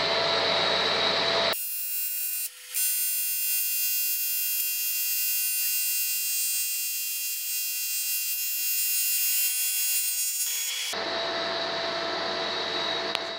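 TIG welding arc on an aluminium Volkswagen 1.9 diesel cylinder head, welding up a crack that runs from the prechamber, with filler rod fed in by hand. The arc gives a steady high-pitched whine that starts about a second and a half in, breaks off briefly just after, and stops about eleven seconds in. Before and after the arc there is a steady background hum.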